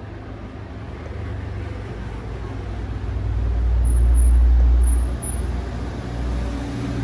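A low, steady rumble like passing road traffic. It swells about three seconds in and drops off sharply just after five seconds.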